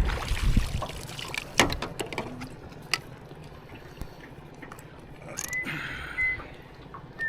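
Water splashing and trickling with scattered small clicks, and a low wind rumble at the start that dies away. About five and a half seconds in, a few short high whistled notes begin.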